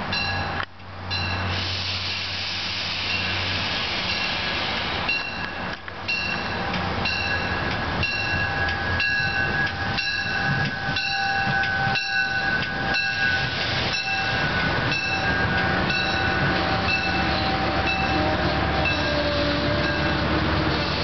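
MARC bilevel commuter train passing close by, its wheels clicking in a regular rhythm a little under twice a second. A steady whine rises over the rumble through the middle of the pass.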